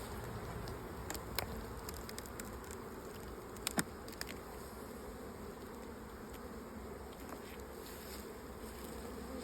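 Crowded honeybee colony buzzing steadily at the hive, with a few light clicks, two close together about four seconds in.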